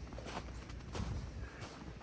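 Footsteps crunching through snow, a step about every half second, over a low rumble that is loudest about a second in.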